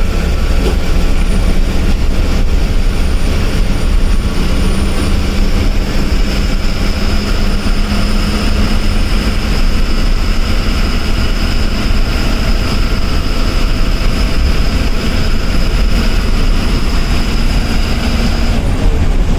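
Diesel bus engine running at road speed, heard from inside the driver's cabin: a steady drone and heavy road rumble with a thin high whine over it that cuts off near the end.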